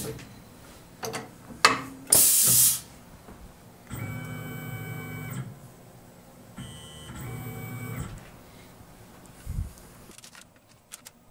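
Tormach PCNC 1100 CNC mill: a short sharp hiss of compressed air from the power drawbar as the tool holder is clamped into the spindle. Then the axis stepper motors whine through two moves of about a second and a half each as the machine positions the drill.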